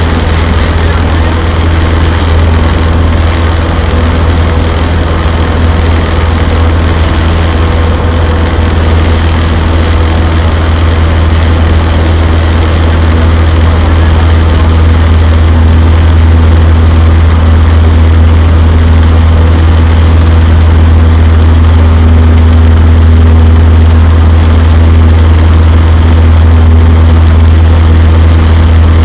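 Cessna 152's four-cylinder Lycoming O-235 engine and propeller droning steadily in flight, heard inside the small cabin. The drone grows a little louder about halfway through.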